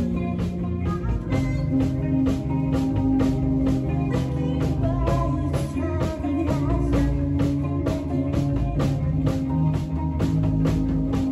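Rock band playing live: a drum kit keeps a steady beat under sustained electric guitar and bass notes.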